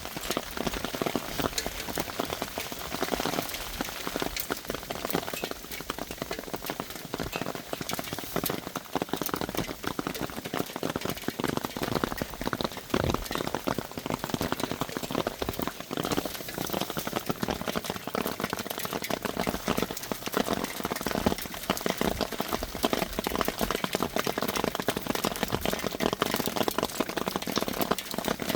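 Hail falling: a dense, steady patter of many small hits.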